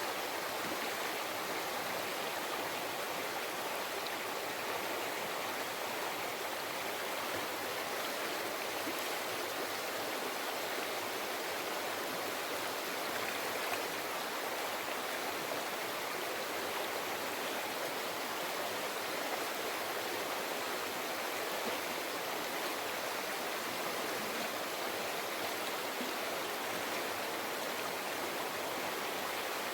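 A river flowing steadily over rocks: an even, unbroken rush and babble of running water.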